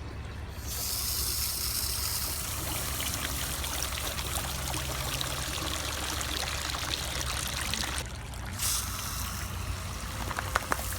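Water running or spraying in a steady rush. It starts suddenly about a second in and breaks off briefly near the end, over a steady low hum.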